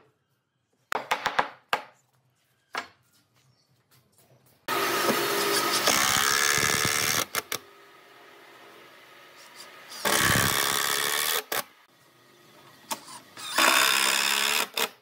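Power tool running in several short bursts on wood, with quieter gaps between them. The last burst, near the end, is a cordless drill boring into the wooden tabletop.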